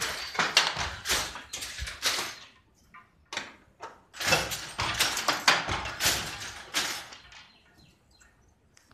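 Wooden handloom with a punched-card attachment clattering and sliding: quick scraping knocks in two runs, with a pause between them and a quieter stretch near the end.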